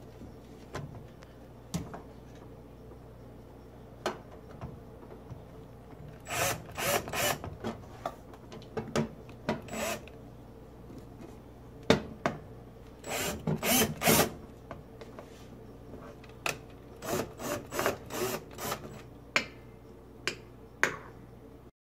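Screws being driven into the gas range's metal frame, in short bursts of scraping and clicking with pauses between. The screws are run in but not fully tightened, so the parts can still be shifted into line.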